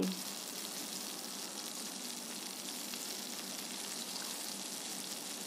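Milk-based korma gravy simmering in a non-stick pot, a steady soft sizzle and bubbling.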